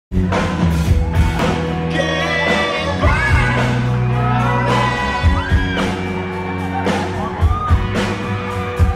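Live band playing with a singer: steady bass, drum hits and sung vocal through the PA, with crowd whoops and shouts.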